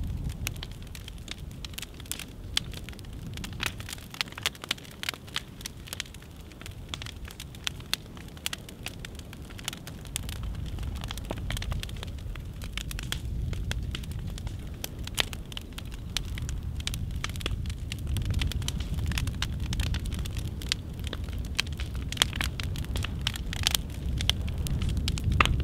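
Fire crackling as an upright piano burns, with many sharp pops and snaps over a low rumble that grows stronger about halfway through.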